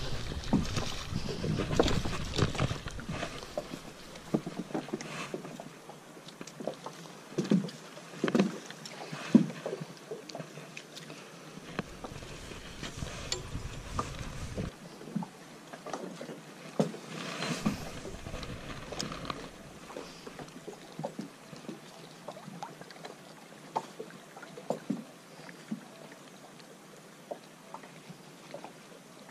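Scattered knocks, taps and clicks from fishing gear and the hull of a small boat, over a noisy background. Wind rumbles on the microphone in the first few seconds and twice more around the middle.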